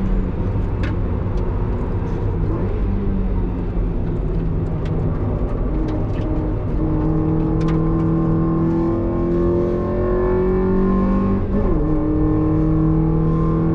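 Mazda NB Roadster's inline-four engine pulling hard at steady high revs on a circuit lap, heard from inside the cabin with tyre and wind noise. Its note steps up in pitch partway through, then dips briefly and climbs back late on.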